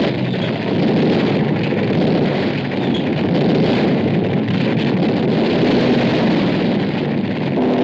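Aircraft engines in a steady, dense roar on an old film soundtrack, dubbed over footage of aircraft attacking ships.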